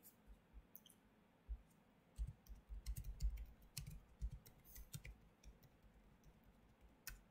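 Faint, irregular clicking and tapping of a computer keyboard and mouse, busiest in the middle few seconds.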